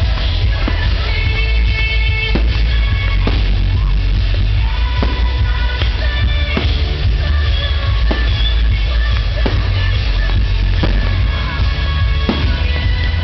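Loud music with singing over a heavy, steady bass, with sharp hits at uneven intervals every second or so.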